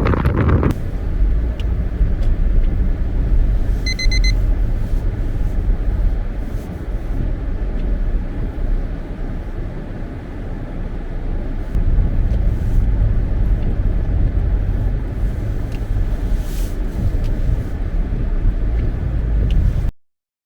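Steady low road rumble of a car driving, with a short high electronic beep about four seconds in. The sound cuts off suddenly near the end.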